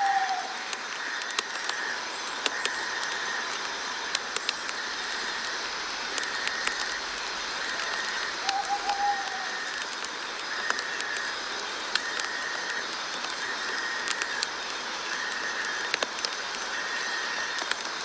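Night-time nature ambience: a steady hiss under a chorus that swells in regular pulses about every second and a half, with scattered clicks and one short whistled call about eight and a half seconds in.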